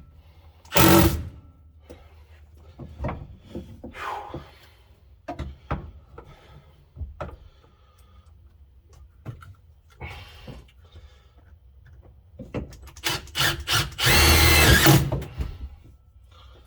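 Power drill running in two short bursts, about a second each, near the start and about 14 seconds in, as if driving screws. Between them come scattered clicks and knocks of tools and parts being handled.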